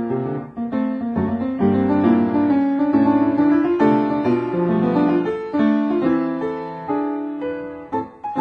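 Piano music: a piano accompaniment playing a moving melody over chords.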